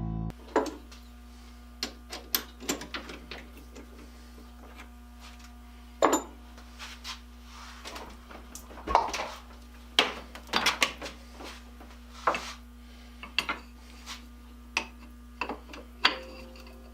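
Irregular knocks, taps and clatter of wood and tools being handled on a workbench, over a steady low electrical hum.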